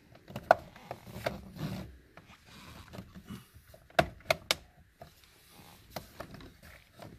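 Plastic steering column shroud pieces being handled and pressed together, with rubbing and scattered sharp clicks as they snap into place, including three quick clicks about four seconds in.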